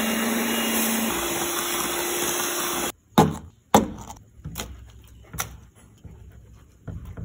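An electric kitchen appliance motor running as it blends the shaved-ice mixture, its pitch stepping up about a second in, then cutting off suddenly at about three seconds. After it, plastic cups are set down on the table with two sharp knocks and a few lighter taps.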